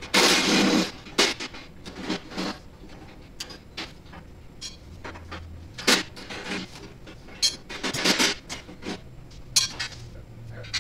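Metal parts and tools clanking and rattling as a two-post car lift is assembled: a loud clatter about a second long right at the start, then scattered sharp clanks and knocks.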